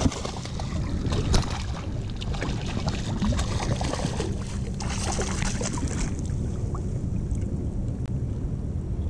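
Hooked spotted seatrout thrashing and splashing at the water's surface on the line, with a sharp knock about a second and a half in; the splashing stops about six seconds in, leaving steady wind rumble on the microphone.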